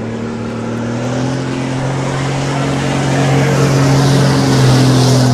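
KAMAZ rally truck's diesel engine running hard at a steady pitch and growing louder. A hiss builds toward the end as the truck slides.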